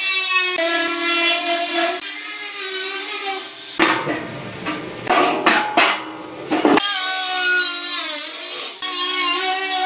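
Angle grinder's cut-off disc cutting through the thin steel of an oil drum, a steady whining grind. The grinding breaks off for about three seconds in the middle, where there are knocks and scraping from the steel drum being handled, then starts again.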